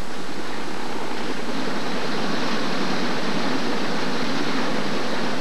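Steady noise of a light helicopter hovering low, its rotor and turbine running, over rushing floodwater.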